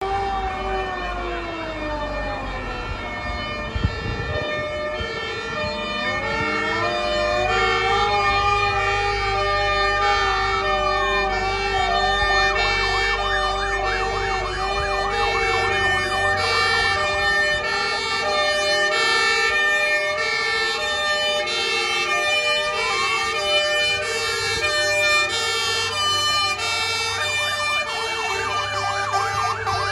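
Several fire engine sirens sounding at once: alternating two-tone calls overlapping with wailing sirens that rise and fall slowly, and a fast warble near the end. A low engine rumble runs beneath.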